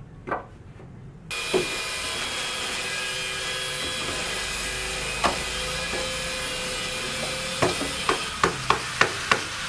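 Hammer striking wood on a building site: a few single blows, then a steady run of about three blows a second near the end, over a constant hiss that starts suddenly about a second in.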